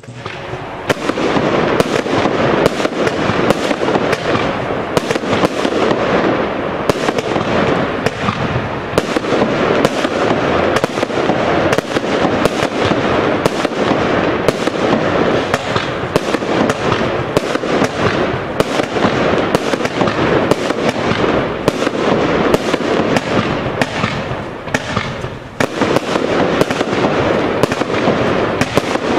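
Yellow Jacket finale cake firing a rapid, continuous barrage of shots and bursts, several a second, with a short lull about 25 seconds in before it picks up again.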